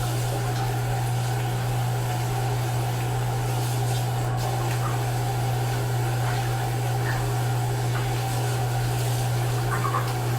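Steady mechanical hum: a strong low drone with several fainter steady tones above it, unchanging throughout.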